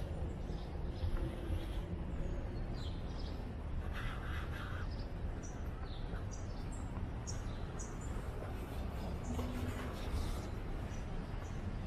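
Outdoor street ambience: a steady low rumble under birds calling, with many short high chirps and a harsher, crow-like call lasting just under a second about four seconds in.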